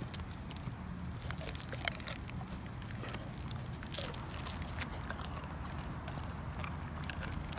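Dog chewing a whole raw fish: irregular wet clicks and crunches of teeth on flesh and bone, over a low steady rumble.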